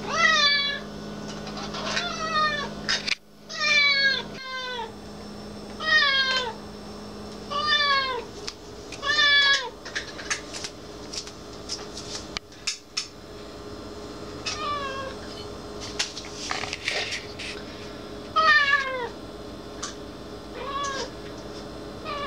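Domestic cat meowing over and over, about every two seconds, each meow a short call that falls in pitch, with a pause of a few seconds in the middle. Scattered light clicks between the meows.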